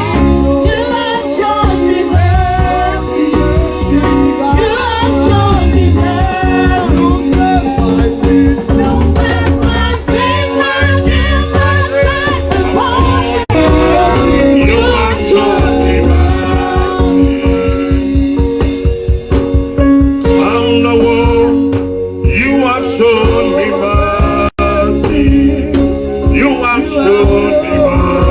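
Live gospel worship song: singing over a band with drums and guitar, with a steady beat.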